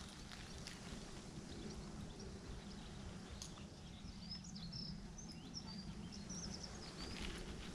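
Quiet outdoor ambience with a steady low rumble. From about four seconds in until near the end, a small bird chirps a quick series of short, high notes.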